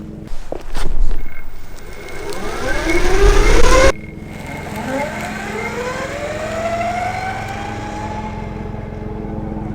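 Electric skateboard motor whine rising in pitch as the board accelerates, cutting off abruptly about four seconds in, then rising again more slowly and holding steady. A few knocks come in the first second.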